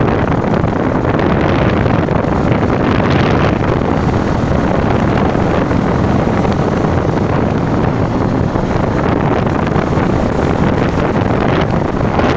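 Steady wind rush over the microphone of a Yamaha R15 V3 motorcycle under way, with road and engine noise beneath it.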